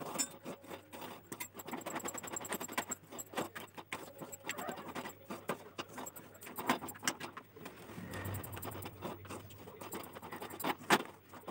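Wooden spatula scraping and knocking against a metal kadai while stirring thick cornflour halwa mixture, giving a run of irregular clicks and scrapes. A faint low steady hum runs underneath.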